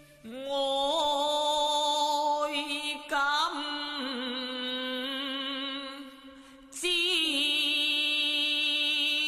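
Cantonese opera singing: a voice drawing out long held notes with vibrato, in three phrases that each open with an upward slide in pitch. The middle phrase is softer.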